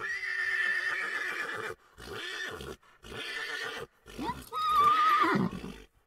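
Horse whinnying: four calls in a row, a long high one, two shorter ones, and a last one with a quavering pitch.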